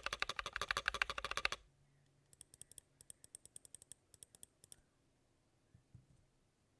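Typing sound test on a Drop Tokyo60 60% aluminium-case mechanical keyboard with Moondrop Tactile Tessence switches and PBT keycaps. It opens with a fast, dense run of keystrokes that stops about a second and a half in. After a short pause comes a lighter, fainter patter of key presses that ends just before the halfway point.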